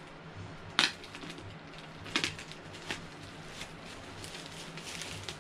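Clear plastic bag crinkling and heavily applied packing tape being pulled off as a packaged Funko Pop figure is unwrapped, with a few sharp crackles, the loudest about a second in.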